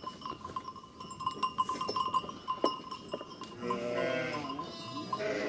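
Sheep bleating once, about three and a half seconds in, a wavering call lasting about a second, over a constant light clinking of livestock bells.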